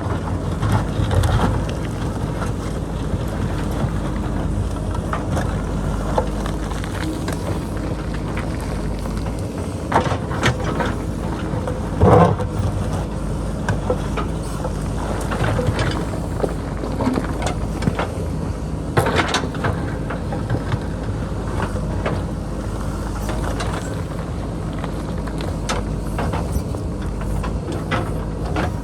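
JCB backhoe loader's diesel engine running steadily as it digs into rocky hillside, with scattered knocks and clatter of rock against the bucket; the loudest knock comes a little before halfway.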